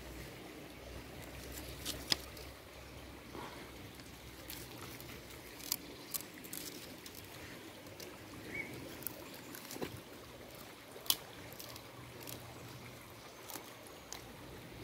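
Faint trickle of a shallow stream, with a few sharp clicks and snaps here and there as a dog bites and tugs at a wooden stick.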